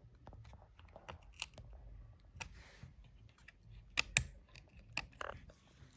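Faint, scattered small clicks and taps of fingers prying at the clips holding the cover over a laptop's RAM slot, with a few sharper clicks.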